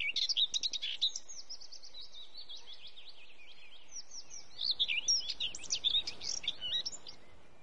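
Birds chirping, many quick high notes that sweep up and down, busiest at the start and again from the middle to near the end, over a steady background hiss that fades out near the end.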